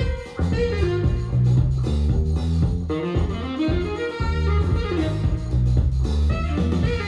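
Music with a gliding melody over a heavy bass line, played through desktop speakers for a sound test and picked up by a microphone in the room.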